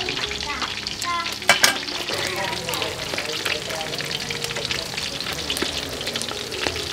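River eels sizzling and crackling in a wire grill basket over a charcoal clay stove, with one sharp click about a second and a half in.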